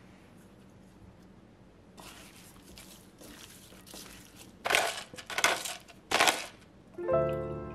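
Raw chicken pieces being turned over by a gloved hand in a glass bowl, faintly, then a pepper grinder twisted over the bowl in three loud grinds a little under a second apart.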